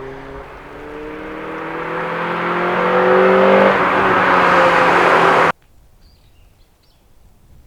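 Honda Prelude's H22A four-cylinder engine accelerating, its pitch climbing and getting louder as the revs build. The sound cuts off suddenly about five and a half seconds in, leaving only faint background.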